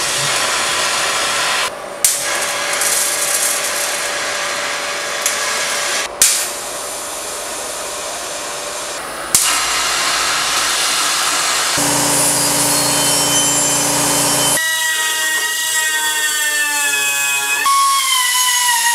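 Metal finishing on a cast bronze piece in several short cuts: a steady hiss through the first half, then the high whine of a small hand-held rotary grinder with a sanding disc, its pitch wavering and dipping near the end.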